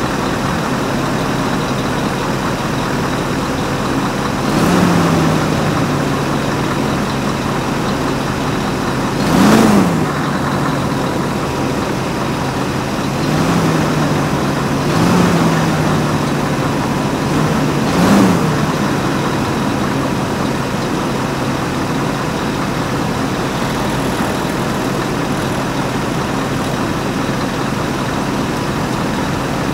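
Scania R730's 16-litre V8 diesel idling steadily, revved briefly five times, each rev climbing and dropping straight back to idle.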